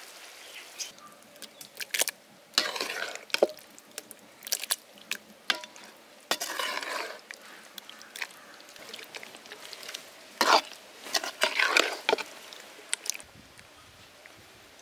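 A metal ladle stirring and scooping thick chicken curry in a metal cooking pot: a handful of separate, irregularly spaced scrapes and clinks against the pot, with wet sounds of the gravy.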